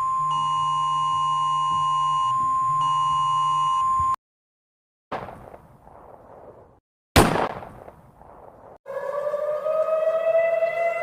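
Emergency alert alarm audio: a steady, high electronic alert tone cuts off about four seconds in, followed by silence, two sudden booms that die away, and then a civil-defense-style siren starting to wind up with a slowly rising pitch.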